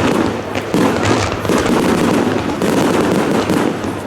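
Fireworks going off in quick succession: a dense run of bangs and crackles, with a sharp loud burst about three quarters of a second in.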